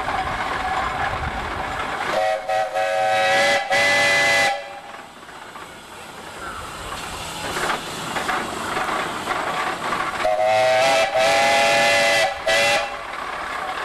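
Custom calliope of antique whistles on a 1914 Huber 25/55 steam traction engine, sounding several whistles together in a chord. It plays two passages, one about two seconds in and a longer one from about the middle to near the end, each broken by short gaps. Between the passages there is a steady noisy hiss.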